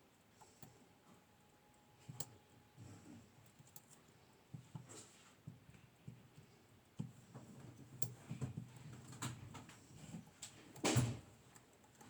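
Faint metal clicks, taps and scrapes of lock picks and a tension tool working in a Mul-T-Lock 7x7 cylinder, with one louder click about eleven seconds in.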